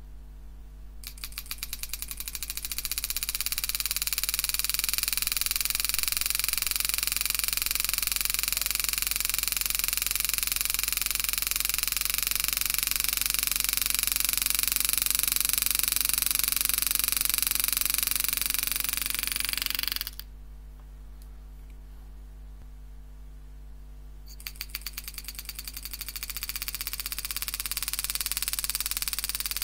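Homemade motor-driven hand engraving machine, its handpiece hammering a 120-degree carbide graver into 304 stainless steel with rapid, even strikes. The strikes speed up over the first couple of seconds as the foot pedal is pressed, run steadily, cut off suddenly about twenty seconds in, and start again a few seconds later.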